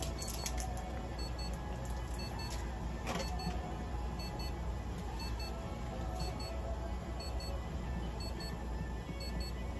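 Faint electronic beeping from clinic equipment, short high beeps in pairs about once a second, over a steady low mechanical hum.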